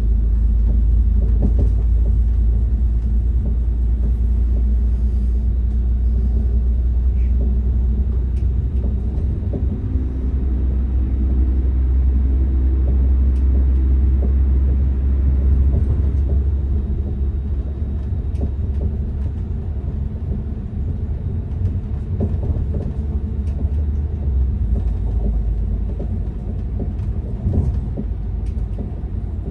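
Class 197 diesel multiple unit heard from inside the carriage while running: a steady low rumble of engine and wheels on the rails. The rumble eases a little about halfway through.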